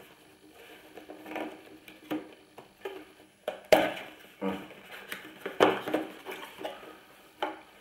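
Small cardboard retail box being worked open by hand: cardboard rubbing and scraping as the inner tray slides out, with a few sharp knocks or snaps. The loudest comes about three and a half seconds in.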